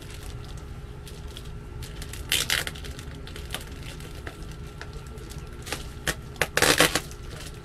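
Plastic wrapping and 1-gallon plastic nursery pots being handled and fitted into a plastic bucket: scattered crinkles and clicks, with a louder rustle about two and a half seconds in and the loudest one near the end.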